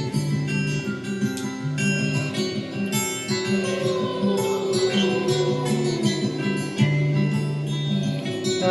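Instrumental music: acoustic guitar picking plucked-string notes over a steady bass line, with a gliding melodic line about halfway through.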